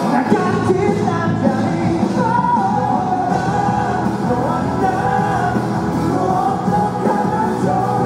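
Live rock band performance: a lead vocal sung over electric bass, guitar and a full band mix.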